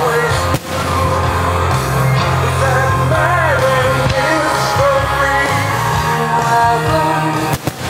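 A song with a singing voice over a steady bass line, with two brief dropouts: about half a second in and near the end.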